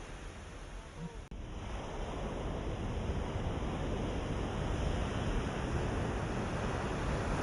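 Ocean waves washing on a shore: a steady surf hiss with a brief dropout about a second in, after which the surf swells and grows louder.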